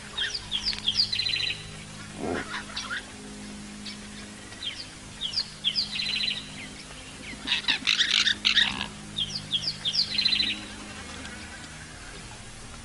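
Bird song: a short phrase of quick high notes ending in a fast buzzy trill, sung three times, with a louder burst of harsher chattering calls midway.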